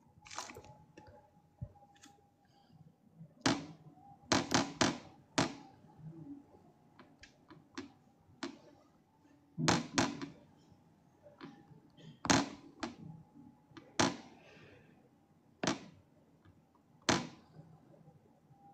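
A series of about fifteen sharp knocks and taps at irregular intervals, some in quick clusters of two or three, over a faint steady tone.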